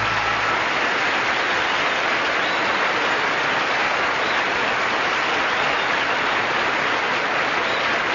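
Audience applauding steadily after a song, with the last sustained note of the music fading out in the first half second.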